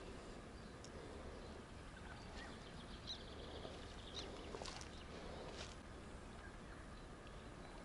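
Quiet outdoor ambience with a low steady background and a few faint, short chirps and clicks scattered through the middle.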